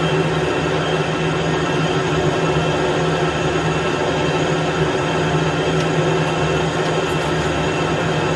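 Metal lathe running under cut, its tool cutting into a hard steel drive shaft: a steady machine hum with an even cutting hiss over it.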